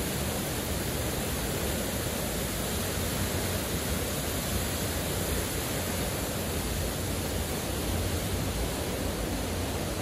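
Heavy waterfall pouring into a rock pool: a steady, unbroken rush of water.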